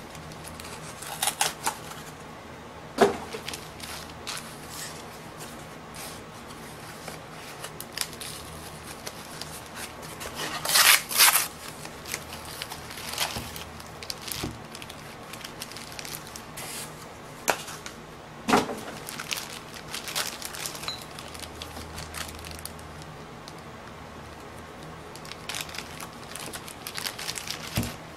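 Clear plastic bags crinkling and rustling as they are handled and opened, with scattered clicks and a few sharp knocks, the loudest about three seconds in and about eighteen seconds in. A louder burst of rustling comes around eleven seconds in.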